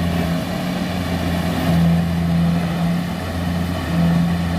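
Kubota combine harvester's diesel engine running steadily: a low hum that swells a little louder a few times.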